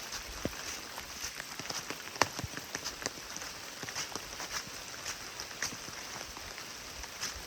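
Steady rain with irregular drops tapping close by, one sharper tap about two seconds in.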